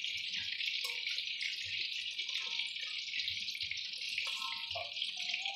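Hot oil sizzling steadily in a wok as chillies, tomatoes, shallots and garlic are deep-fried until half-cooked for a spice paste.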